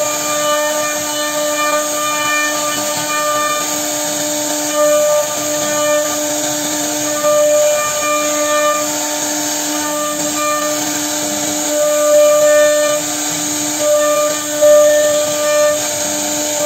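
CNC router spindle cutting into a wooden door panel: a steady whine with the hiss of the bit chipping wood, the whine breaking off briefly a few times.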